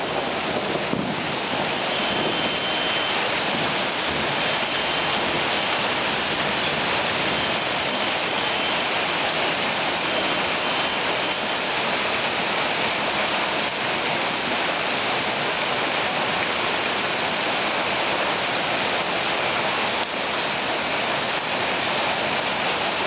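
Heavy hailstorm: hail falling on rooftops and the street, a steady, even wash of noise that holds level throughout.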